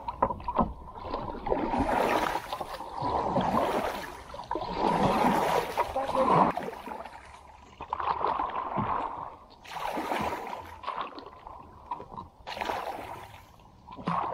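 Kayak paddle strokes dipping and splashing in still, weedy water. The swishes swell and fade every second or two.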